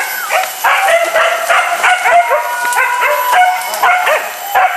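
A pack of hunting dogs yelping and baying, several dogs calling over one another without a break.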